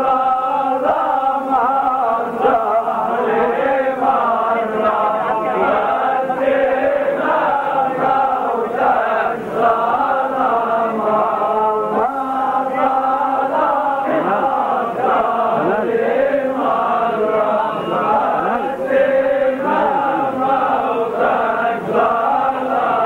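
A group of men chanting a Lebanese zajal refrain together in unison, steady and unbroken.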